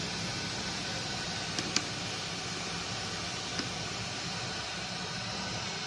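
Steady even hiss, with two light clicks, about two seconds apart, of a utensil against a plastic colander as blanched cabbage leaves are lifted into it.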